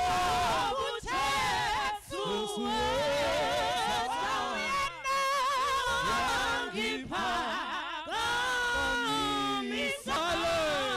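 Three women singing a gospel praise song together in harmony, their held notes wavering with wide vibrato.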